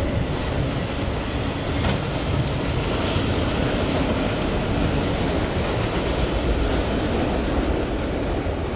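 Freight train rolling past, a steady, loud noise of steel wheels running on the rails.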